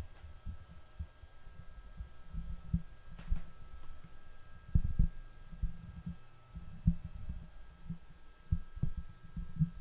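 Irregular muffled low thumps and bumps on the microphone, several in quick succession, over a faint steady electrical hum with thin high tones.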